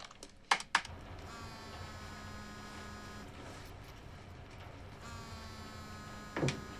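Mobile phone signalling an incoming call: two sharp key clicks start it, then the phone buzzes steadily for about two seconds, pauses, and buzzes again. A short thump comes near the end.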